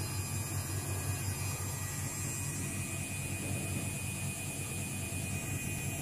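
Luxor WM 1042 front-loading washing machine running with its drum turning: a steady motor hum over a low rumble.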